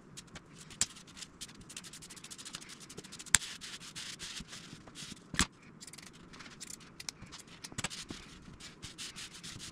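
Dry woven fiberglass cloth being draped and smoothed by hand over a foam plug: dry rustling and rubbing with scattered small ticks, the sharpest about three and a half and five and a half seconds in.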